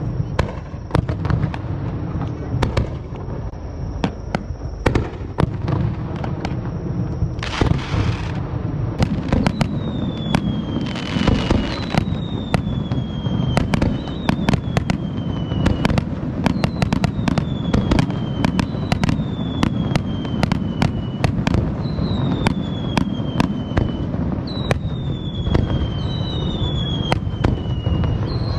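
Aerial fireworks display: a steady run of sharp bangs and booms over a low rumble, with two short crackling hisses about a third of the way in. From then on, whistling tones that fall in pitch sound every second or two.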